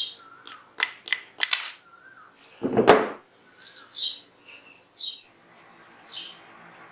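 Sharp metallic clicks and one louder knock about three seconds in as pistol parts are handled during disassembly, with small birds chirping in the background.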